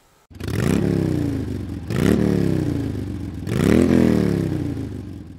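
A motorcycle engine revved three times. Each blip rises quickly in pitch, then falls away more slowly as the revs drop.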